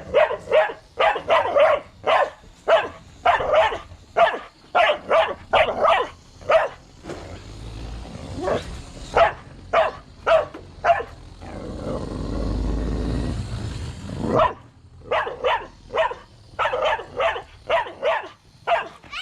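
Dog barking in a rapid series of short, sharp barks, about two or three a second, at a model train. The barking breaks off for about three seconds in the middle, where a steady low rumble is heard, then starts again.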